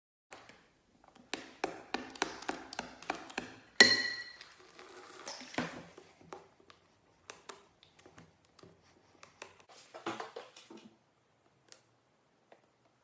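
Slime being squeezed and poked by hand, giving runs of quick crackling pops, with one sharp tap that rings briefly about four seconds in.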